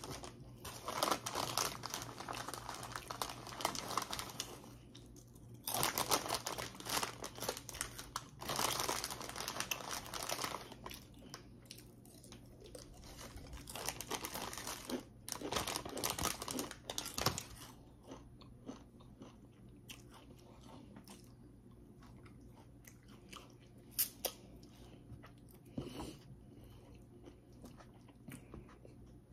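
Close-miked chewing of crunchy food, in several spells of loud crunching over the first seventeen seconds or so, then quieter chewing with a couple of sharp crunches near the end.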